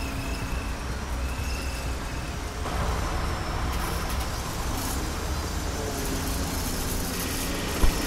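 Truck engine running, a steady low rumble that grows louder and fuller about three seconds in, with two sharp knocks near the end.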